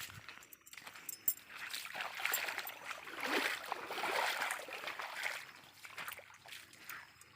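Water trickling and splashing, swelling for a few seconds in the middle, with scattered clicks.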